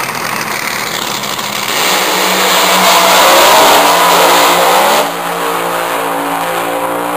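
Drag-racing cars launching off the starting line at full throttle and accelerating away down the strip. The engine sound jumps up about two seconds in, is loudest a second or two later, then drops sharply and carries on as a steadier pitched drone as the cars pull away.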